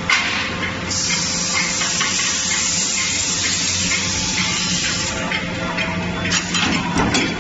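A sharp bang right at the start, then a loud steady hiss for about four seconds, like blown air or spray on forging machinery. Near the end come a few short sharp metallic knocks from the trimming press.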